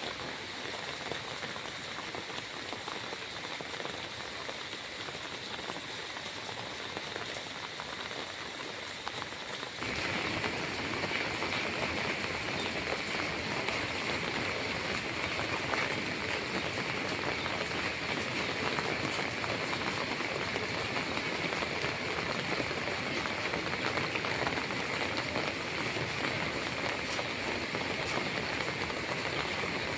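Steady rushing water noise, getting louder and brighter about ten seconds in and then holding.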